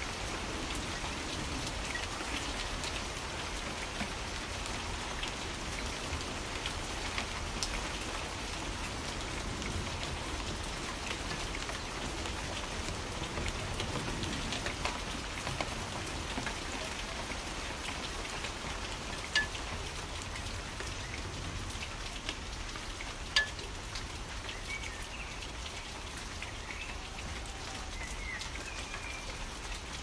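Steady rain falling, with individual drops striking close by; two sharper drop hits stand out in the second half. A few faint bird chirps come in near the end.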